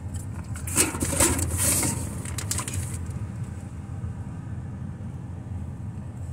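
Groceries being set down inside a car: a cluster of knocks and plastic-packaging rustling from about a second in, lasting around two seconds, over a steady low rumble.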